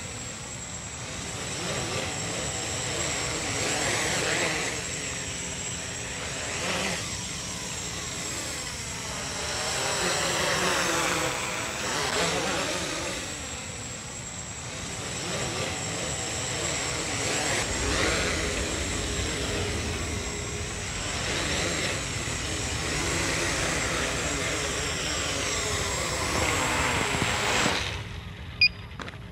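Home-built quadcopter's four Racerstar BR2212 1000KV brushless motors and propellers whirring in flight, the pitch sweeping up and down as the throttle is worked to hold it steady. The motors cut off suddenly near the end, followed by a single click.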